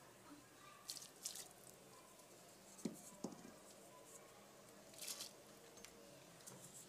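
Faint soft splashes and rustles of shredded cabbage and chopped vegetables being tipped into a steel pot of chicken stock, a few separate times.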